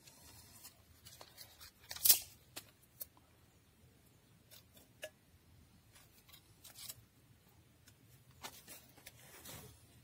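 Dry sticks being handled and snapped by hand for a rocket stove: a series of separate sharp cracks and rustles, the loudest about two seconds in, with a further cluster near the end as wood is pushed toward the stove's feed tube.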